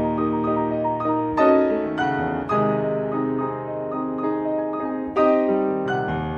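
Solo piano music: a slow passage of chords, with new chords struck about a second and a half in, again a second later, and once more near the end, each left to ring and fade.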